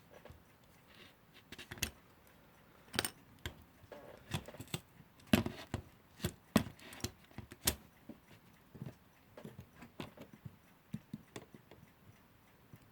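Small metal parts of a 1947 Timlec Lectolarm alarm clock and a pair of pliers clicking and tapping as the clock is worked on by hand. The sharp clicks are irregular, and the loudest come around the middle.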